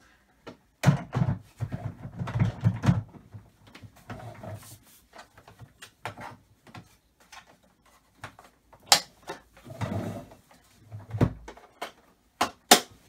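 Plastic knocks, rattles and sharp clicks as parts are handled and fitted onto a Nilfisk vacuum cleaner. A dense run of knocks comes in the first few seconds, with single sharp clicks later and twice near the end.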